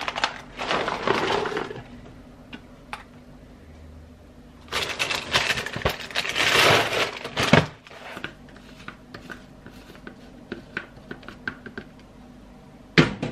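Dry cereal pieces rattling into a plastic tub, with a louder stretch of rattling about halfway through. Then light clicks and taps as a plastic shaker bottle is handled, and a single sharp knock near the end.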